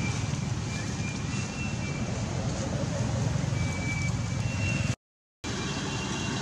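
Steady outdoor background noise, heaviest in the low range, with a few short, thin high tones over it. It cuts out completely for about half a second about five seconds in.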